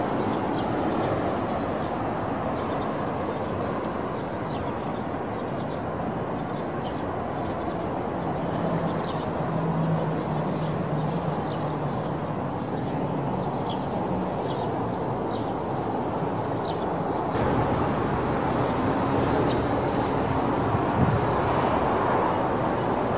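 Steady rumble of distant traffic, with short high bird chirps dotted through it. The background grows louder about seventeen seconds in.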